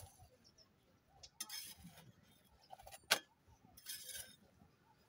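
Flat metal spatula scraping across a metal tava under a sorghum bhakri: two short scrapes, with a sharp metallic clink between them about three seconds in.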